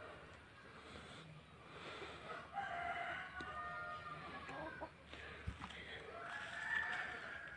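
A rooster crowing twice, first about two and a half seconds in and again near the end.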